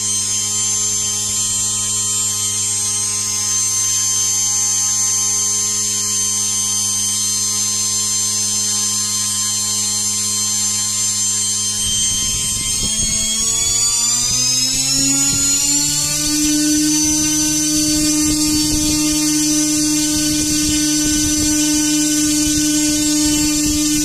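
3D-printed brushless outrunner motor (12N10P, PLA rotor) running with a steady electric whine. About halfway through it speeds up, its pitch rising over a few seconds to a higher steady whine, and a rough rushing noise joins in.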